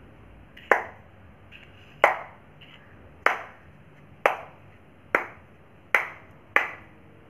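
Small plastic rangoli stamp tool, filled with rangoli powder and fitted with a sieve, tapped down onto a tiled floor seven times. Each tap is a sharp plastic click, about one a second at first and coming a little faster toward the end.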